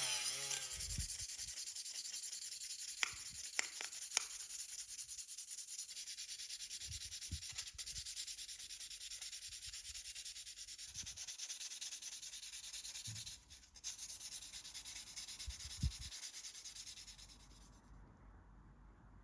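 Steady sanding: a fast, gritty rubbing on the car body during restoration, with three sharp clicks about three to four seconds in. The sanding stops near the end.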